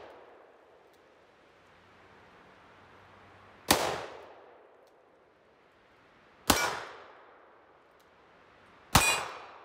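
Smith & Wesson Governor revolver firing three shots, about three seconds apart, each ringing out and dying away over about a second. The cylinder holds a mix of .45 Colt rounds and .410 shot shells.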